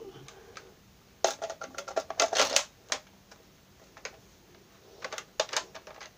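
Two flurries of rapid clicks and rattles, the first starting about a second in and lasting nearly two seconds, the second shorter, near the end.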